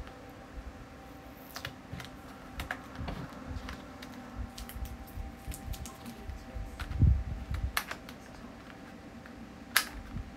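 Scattered clicks and taps as a phone case's packaging is opened and handled, with a heavier thump about seven seconds in and a sharp click near the end, over a faint steady hum.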